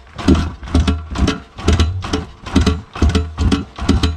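Background music with a steady beat of about two strokes a second over low bass notes.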